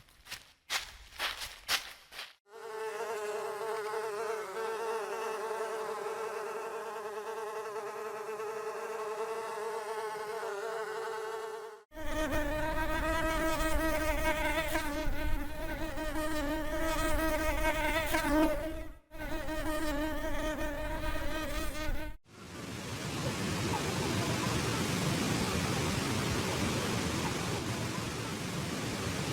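Flying insect wings buzzing: first one steady, even-pitched buzz, then after a short break a lower buzz that wavers in pitch. Near the end the buzz gives way to a steady rushing noise.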